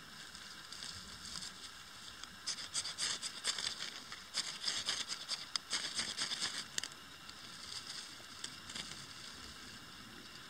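A small wood fire crackling as a burning tinder bundle catches the kindling above it. Dense, sharp crackles between about two and a half and seven seconds in, sparse ones before and after.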